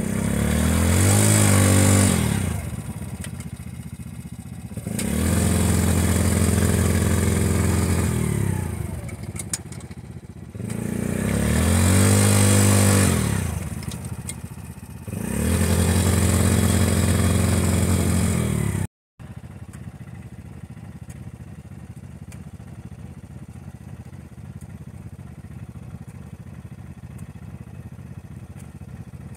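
Yamaha Grizzly 90 youth ATV's small four-stroke single revved hard four times in long pulls, each rising and falling, while bogged in a mud rut: the quad is stuck. After about nineteen seconds the sound cuts out briefly and the engine settles to a steady idle.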